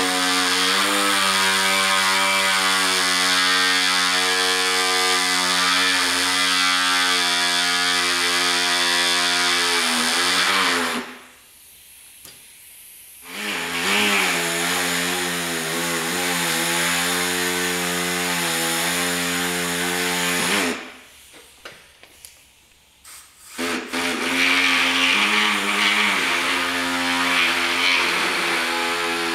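Pneumatic air saw running as it cuts the plastic slats out of a pickup grille, with a steady buzzing tone whose pitch wavers slightly. It runs in three long stretches, stopping twice for a couple of seconds, with a few short blips in the second stop.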